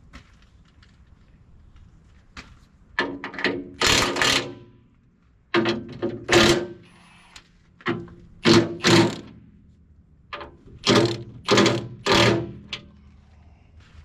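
Repeated metal knocks and clanks, about a dozen in irregular clusters, some with a short ringing tone, from steel parts being struck or worked during repair of a Cat 953C track loader's damaged front bodywork.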